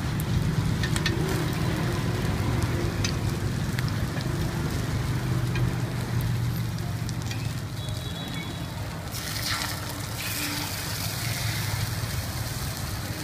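Batter balls frying in a dimpled griddle pan, a steady sizzle, with a low steady hum underneath and a few light clicks.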